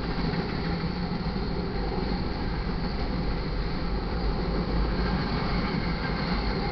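Freight train cars rolling past on the rails: a steady rumble and rattle of wheels and car bodies.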